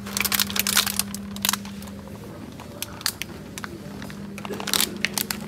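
Clear plastic egg pack crackling and crinkling as it is picked up and handled, in clusters of sharp clicks, over a steady low hum.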